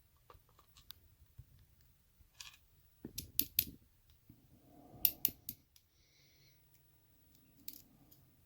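Small metallic clicks and taps of tools and pin-tumbler parts being handled while springs and pins are loaded into a Yale lock cylinder, with two short runs of sharper clicks about three and five seconds in.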